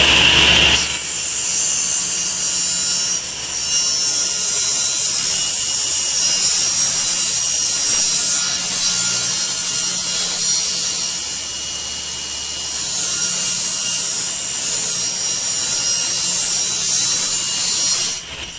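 Table saw ripping a long wooden board lengthwise: a loud, steady, high-pitched cutting noise from the spinning blade in the wood, cutting off abruptly near the end.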